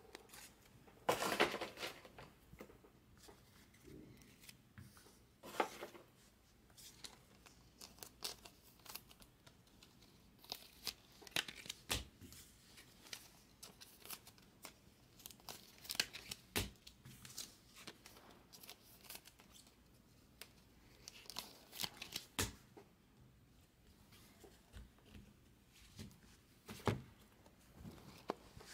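Trading card pack wrapper torn open and the cards handled: scattered short tearing and crinkling sounds with soft taps and clicks as the stack is shuffled through.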